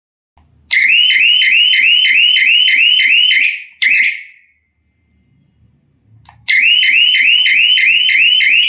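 Electronic panic-alarm siren sounding a fast warbling tone, about three to four rising-and-falling chirps a second. It sounds for about three seconds, gives one short chirp, then starts again a couple of seconds later. Faint clicks come just before each burst.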